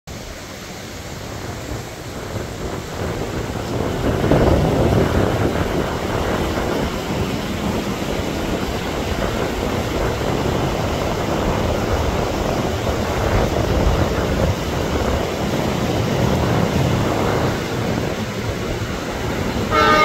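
Diesel-hauled passenger train crossing a steel truss railway bridge: a steady running noise that grows louder about four seconds in and holds. Right at the end the diesel locomotive's horn begins to sound.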